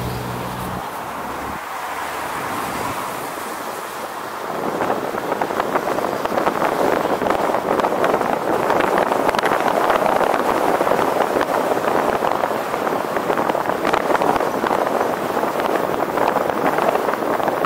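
Wind rushing and buffeting over an exposed camera microphone during a ride along city streets, with road noise underneath. It grows louder and gustier about four and a half seconds in.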